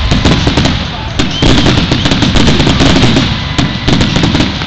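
Fireworks display: a dense, unbroken barrage of bangs and crackles, several a second, from shells bursting overhead.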